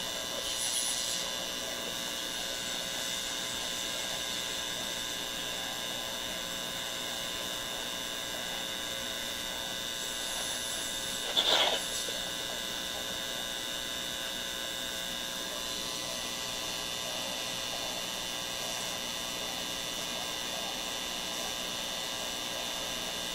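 Steady buzzing hum from a Zenith K510GA tube radio's speaker as it picks up a signal generator's test signal during oscillator-slug alignment. There is a brief scrape or knock about eleven and a half seconds in.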